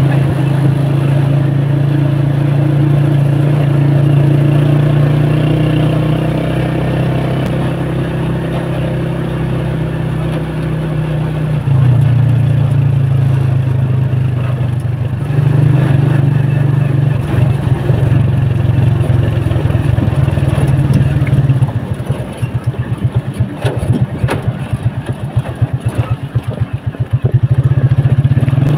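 Motorcycle engine running as it rides along, its steady note shifting a little in pitch and level. Near the end the note breaks into a rapid throbbing and the level wavers, as the road turns to rough gravel.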